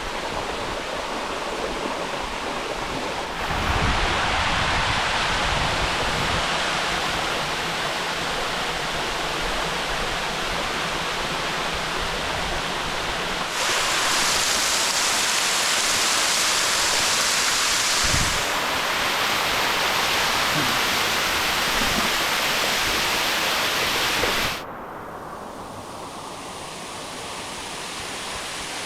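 Rushing water of a canyon waterfall and stream, a steady hiss that abruptly gets louder or softer three times.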